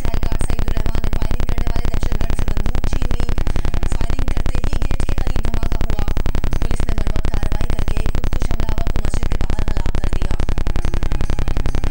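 A loud, steady, rapid buzzing noise like electrical interference, with a faint, muffled television broadcast beneath it.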